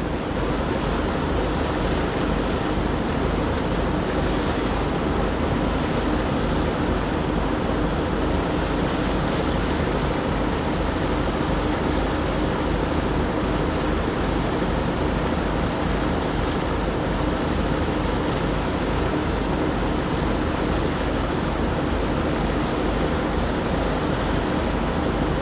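Steady drone of a boat's engine with water rushing past the hull and wind buffeting the microphone, unchanging throughout.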